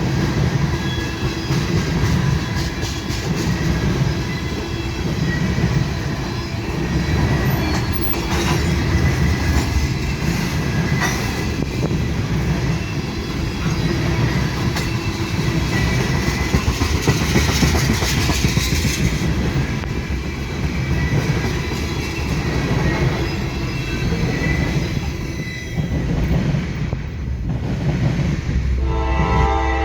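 A train rolling past close by, its wheels clicking over the rail joints with a thin squeal of wheels on rail. About a second before the end, a train horn starts to sound.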